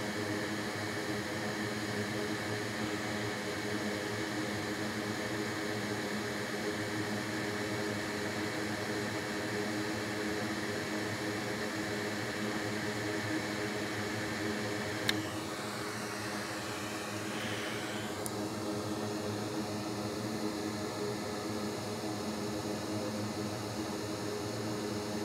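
Steady whirring drone of a fan, a hum of many even tones, with a single click about fifteen seconds in, after which it runs a little quieter.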